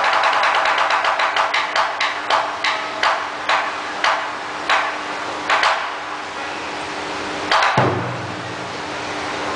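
Shamisen struck with its plectrum in a run of sharp, ringing strokes that slow down gradually, its notes sustaining beneath. About eight seconds in comes a single heavier hit with a deep boom as the taiko drum is struck.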